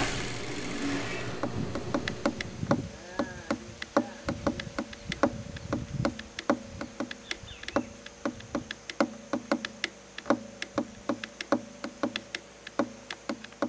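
A steady buzzing hum with irregular sharp clicks, two or three a second, slowly growing fainter.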